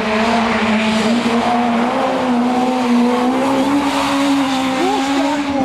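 Rally car engine pulling hard at a nearly steady high pitch that rises slightly, with tyre squeal over it as the car drives a snowy forest stage.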